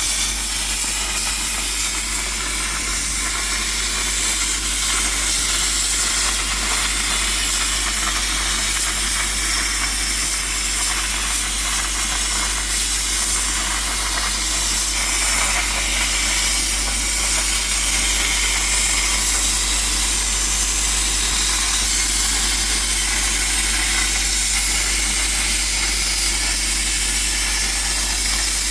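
RTECH P51D plasma cutter torch cutting 3 mm steel sheet at 40 amps on a CNC table: a loud, steady hiss of the plasma arc and air.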